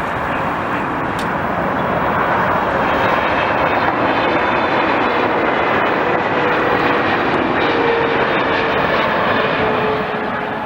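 Airliner passing close by, its engines making a loud steady rush with a faint whine that slowly drops in pitch; the noise swells through the middle and begins to fade near the end.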